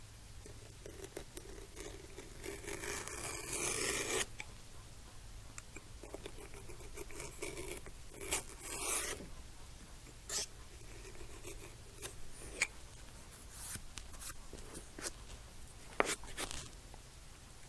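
A knife blade cutting through vegetable-tanned leather on a cutting mat: a series of faint scratchy drags, the longest about three seconds in, with a few light clicks near the end and a low steady hum underneath.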